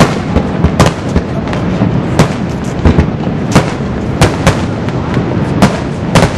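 Fireworks display: aerial shells bursting in a quick, irregular series of sharp bangs, about one or two a second, over a continuous low background noise.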